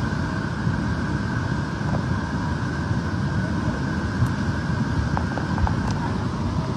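Flash-flood torrent of muddy water rushing down a valley, a steady unbroken rush with the deepest noise low down.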